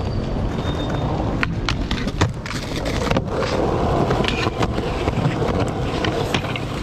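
Skateboard wheels rolling on rough concrete with a steady rumble, broken by a series of sharp clacks as the board pops and lands. The trucks grind a low metal flat bar.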